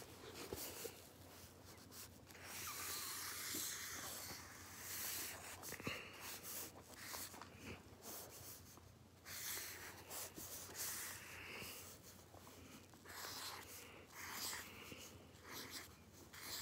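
Pen strokes scratching on paper, faint, in short irregular bursts.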